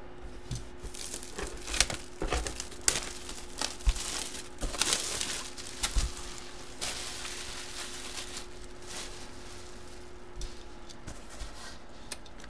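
Plastic shrink wrap crinkling and tearing as a sealed trading-card box is unwrapped, with scattered light taps and clicks of handling the box, busiest in the first half and quieter near the end.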